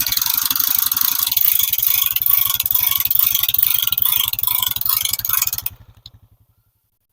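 Four-wheeler (ATV) engine running with a rattling clatter, then switched off a little under six seconds in, its firing beats slowing and dying away.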